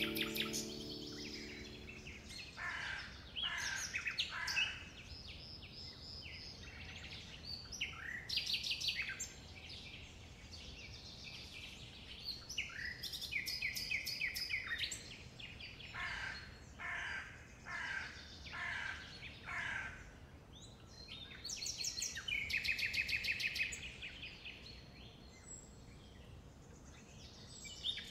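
Several songbirds singing: a mix of short chirps and quick rattling trills in bouts of a second or two, with no one call dominating.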